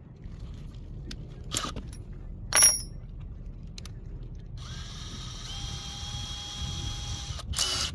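Power drill boring into a wooden deck board: a couple of short sharp bursts in the first three seconds, then the drill runs steadily with a whine for about three seconds, and a brief loud burst near the end.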